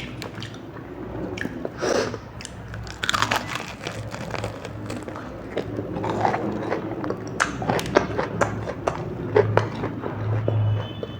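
Close-up eating sounds: crunchy biting and chewing with sharp crackles, as of cheese balls or noodles being eaten.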